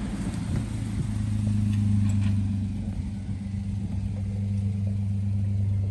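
A vehicle engine running with a steady low hum that stops right at the end.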